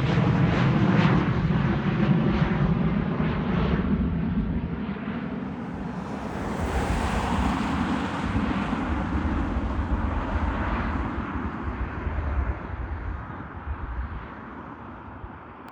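Embraer E175 jet airliner at takeoff power, its two GE CF34 turbofans making a loud jet roar that swells briefly about halfway through and then fades steadily as the aircraft climbs away.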